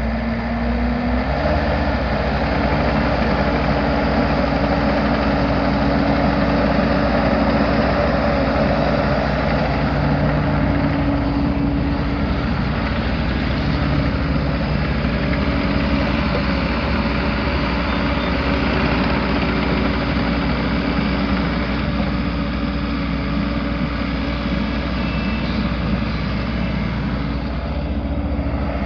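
2016 Bobcat E42 mini excavator's four-cylinder turbo diesel engine running, its speed stepping up about a second in and then holding steady.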